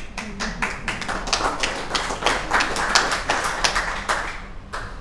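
A small audience clapping, with individual claps heard distinctly. It thins out and dies away about four seconds in, with one last stray clap near the end.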